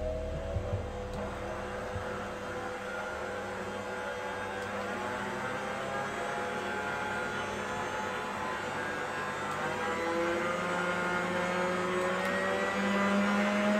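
Signora stand mixer's electric motor running steadily with a smooth whine, now running smoothly and with full power after being repaired for lack of power. Over the last few seconds the whine steps up in pitch and gets louder as the speed is raised.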